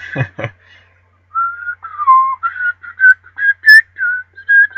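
A person whistling through puckered lips: a quick run of short notes that step up and down in pitch, starting about a second in.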